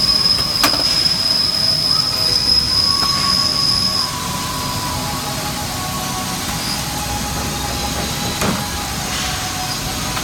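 Mori CNC lathe cell running: steady machine noise with a high whine that stops about four seconds in, over lower steady tones, and a sharp click near the start and another near the end.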